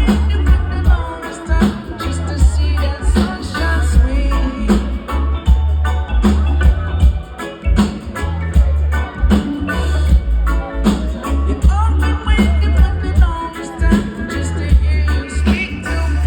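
Reggae band playing with a lead singer: a heavy bass line under a steady drum beat, with singing.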